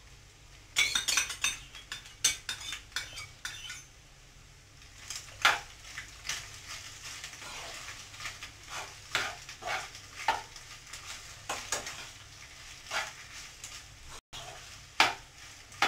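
A metal spoon clinking and scraping against a steel bowl and a cooking pan as sauce is spooned onto pasta and stirred in. A quick run of clinks comes in the first few seconds, then single clinks and scrapes follow every second or so.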